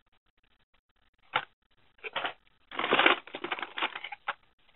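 Blister-carded toy cars rustling and scraping against a cardboard shipping case as they are handled and pulled out of it: a short rustle about a second in, a longer, louder scrape of card and cardboard near three seconds in, then a few light clicks.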